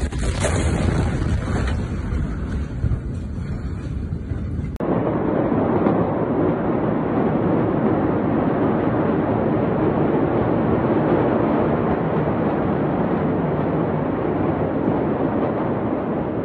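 Wind noise on a phone's microphone: a heavier, rumbling rush for about five seconds, then after an abrupt cut a steady, even rush with no bangs in it.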